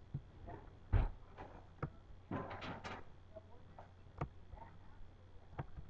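Faint scattered clicks about a second apart and a short rustle about two and a half seconds in, over a steady low electrical hum.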